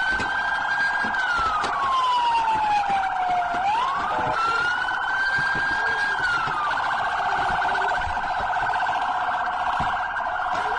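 Police vehicle siren sounding continuously: a slow wail that rises, holds high, then glides down before sweeping back up, layered over a rapid warbling yelp. The slow wail stops about seven seconds in, leaving only the fast warble.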